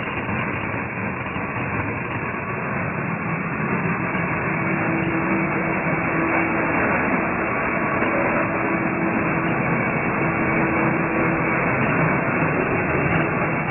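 Plastic-flake colour sorting machine running: a steady, even mechanical hiss and hum, with a faint steady tone coming in about four seconds in and a few scattered faint ticks.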